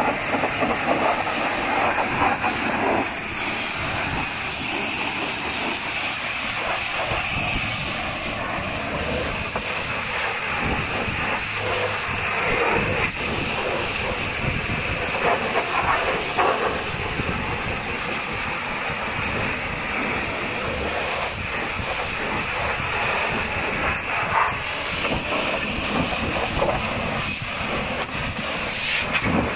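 High-pressure washer jet spraying water onto a truck's tyres, wheel rims and mudguards, washing off mud: a steady loud hiss that changes in texture as the jet moves over rubber and metal.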